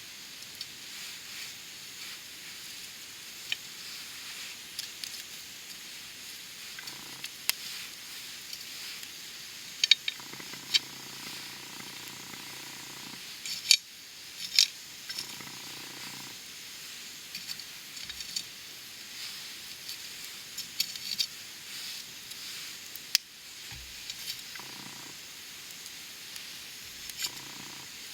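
Wood campfire burning directly on the ground, crackling with a steady hiss and irregular sharp pops; the loudest pops come about ten seconds in and twice around fourteen seconds.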